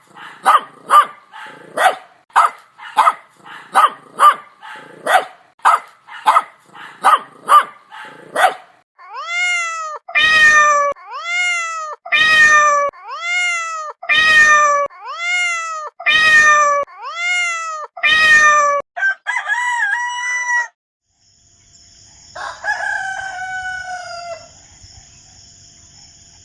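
A run of farm-animal calls. First comes a fast series of about sixteen short calls, two a second. Then come eight drawn-out calls that rise and fall in pitch, about one a second, and a longer crow-like call follows near the end.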